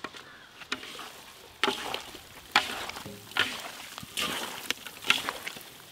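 Hands squishing and turning raw tuna chunks coated in chilli and turmeric powder in a large metal pot: irregular wet squelches and rustles, roughly one a second.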